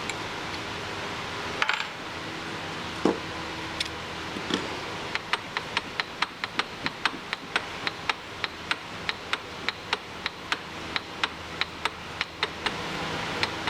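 Light metallic clicks repeating about three times a second from threading a part with a die, after a couple of louder knocks and a ringing ping near the start.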